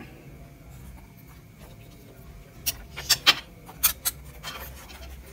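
Sharp clicks and taps, about seven in a second and a half starting near three seconds in, from small electrical parts and multimeter probes being handled on a bench, over a low steady hum.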